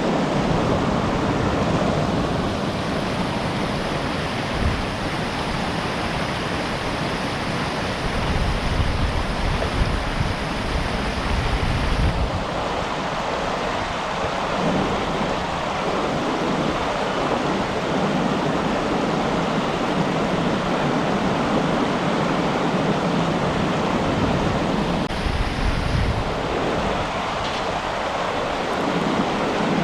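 River water rushing steadily, with wind buffeting the microphone in uneven low rumbles.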